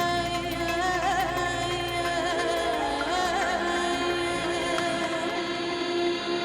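Background music: a slow melodic piece with a wavering, vibrato-like lead line over sustained tones.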